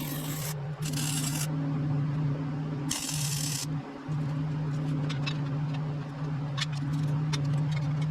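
Welder humming steadily, with three short bursts of hissing crackle about a second apart to three seconds in, like quick tack welds on steel angle iron, then a few faint ticks.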